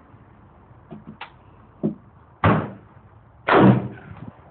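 Two loud gunshots about a second apart, each with a short echo, after a couple of fainter sharp cracks.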